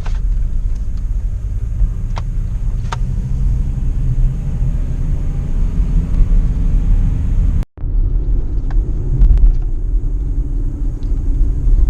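A motor vehicle driving along, a steady low rumble of engine and road noise with a few faint clicks. It cuts out completely for an instant about eight seconds in.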